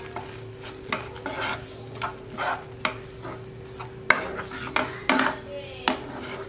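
Wooden spatula stirring a thick salted-egg-yolk sauce in a pan, a dozen or so irregular scraping strokes against the pan. A steady low hum runs underneath.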